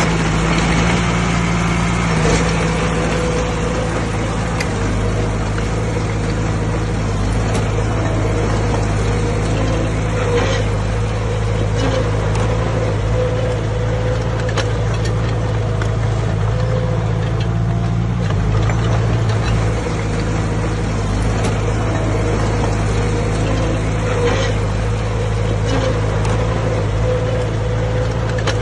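Diesel engine of heavy earthmoving equipment running steadily, with a few faint clicks.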